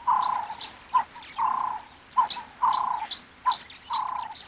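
Birds calling in a repeated phrase about every second and a quarter, four times over. Each phrase is a short clipped note, then a longer held note, with quick rising high whistles over them.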